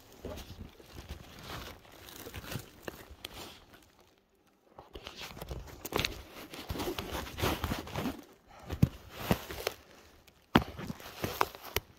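Irregular rustling, crinkling and crunching with scattered sharp clicks and knocks, from close-up movement; it drops almost to quiet for about a second around four seconds in.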